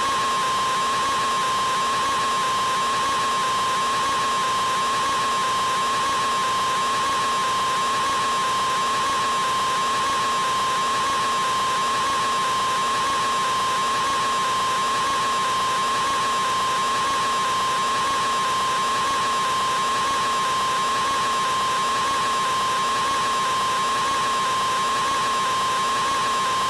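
A man's scream, an open-mouthed 'aaaa' artificially prolonged into one unbroken note held at a single steady pitch.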